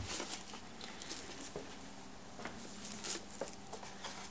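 Faint handling noises: a few soft clicks and rustles as a latex-gloved hand works with an LED headlight bulb, over a faint steady hum.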